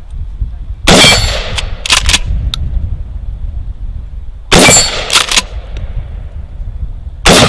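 Three shotgun shots, about three seconds apart, from a Mossberg 590 pump-action shotgun firing buckshot. The first two are each followed about a second later by a couple of shorter metallic clacks.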